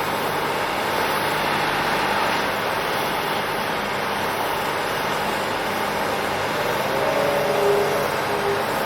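Steady engine noise from heavy machinery, with no hammer blows; a faint short tone wavers near the end.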